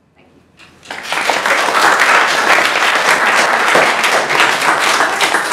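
Audience applauding, starting about a second in and carrying on loudly as dense, steady clapping.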